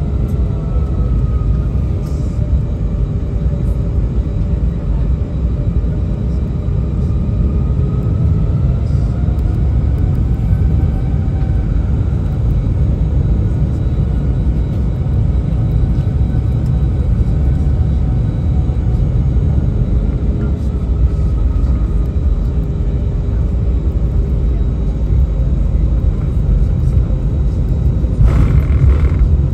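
Airbus A319 taxiing, heard from inside the passenger cabin: a steady low engine rumble with faint engine tones that slowly drift up and down in pitch. Near the end a louder rush of noise rises over it.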